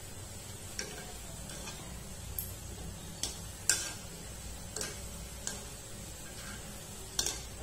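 A metal spoon clicking against the side of a kadai as gulab jamun are turned in hot oil: about seven sharp taps at irregular intervals, the loudest a little under four seconds in and another near the end, over a faint steady sizzle of frying.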